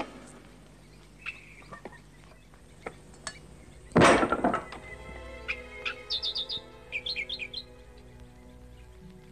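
One loud whack of a hand strike on a wooden log about four seconds in, preceded by a few light knocks. Birds chirp in quick runs afterwards, over faint held background music.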